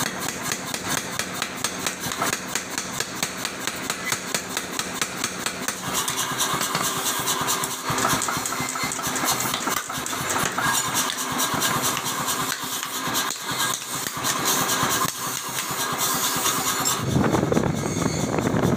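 A 50 kg power hammer striking a red-hot steel hoe blank in rapid, evenly repeated blows, its machinery running underneath. Near the end the blows give way to a lower, steady rushing noise.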